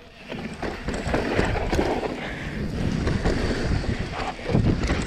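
Mountain bike running fast down a dirt trail: a steady rumble of tyres over rough ground with irregular knocks and rattles, and wind buffeting the microphone. There is a heavier bump near the end.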